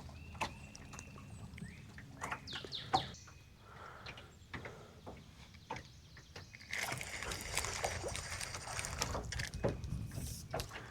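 Birds chirping over scattered clicks and knocks, with a stretch of rustling hiss in the second half.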